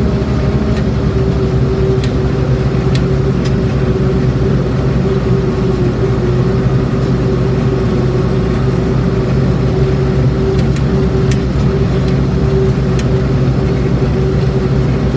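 International Harvester 1086 tractor's diesel engine running steadily while pulling a round baler through the hay, heard from inside the cab. A constant whine sits above the low engine drone, with a few faint ticks.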